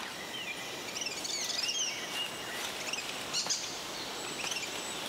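Rainforest ambience: birds calling in short, repeated sliding chirps over a steady hiss of insects.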